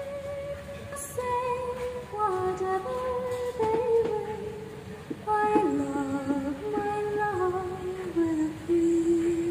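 A song with a slow sung melody playing through a car's speakers from an Android head unit during a sound test.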